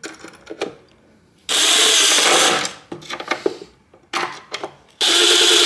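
Cordless drill running in two bursts of about a second each, driving a bolt through a universal socket adapter to tighten a wobbly wooden stool leg. A few light clicks come between the bursts.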